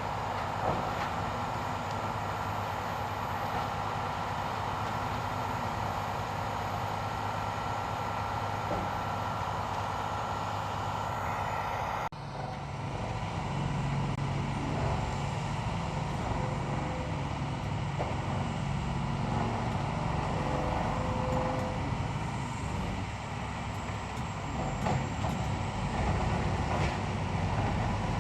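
Metal-working machine tool running steadily; about twelve seconds in the sound changes abruptly to a different, lower-pitched steady machine running.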